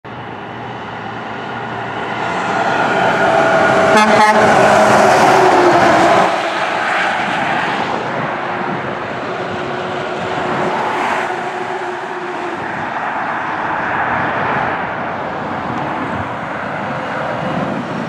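Road traffic with trucks passing close by, engines and tyres running. It is loudest a few seconds in as one vehicle goes past, its tone dropping in pitch, then settles to a steady rumble as more trucks approach.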